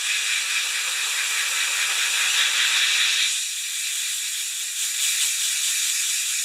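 Compressed-air blow gun hissing steadily as it blows out a lawnmower air filter from the back. The hiss shifts slightly about three seconds in.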